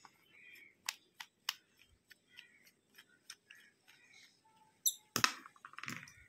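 Small sharp clicks and taps of a precision screwdriver working the tiny screws out of a smartphone's inner frame, with soft scraping between them. A louder cluster of clicks and clatter comes about five seconds in.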